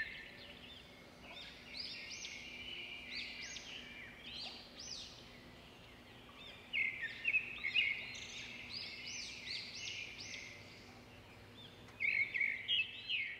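Small birds chirping and twittering, with louder bursts of rapid high notes near the start, about halfway through and near the end.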